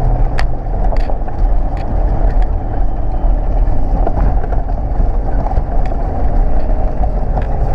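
Toyota LandCruiser 4WD driving slowly over a rough off-road track: a steady, loud low rumble of engine and drivetrain, with occasional sharp knocks.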